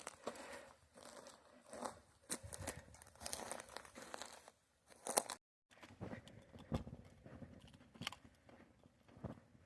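Footsteps crunching irregularly on dirt and gravel, with rustling between steps. The sound cuts out completely for a moment about halfway through.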